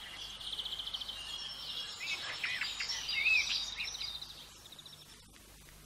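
Songbirds singing in spring woodland: rapid trills and short whistled chirps, fading away about four seconds in.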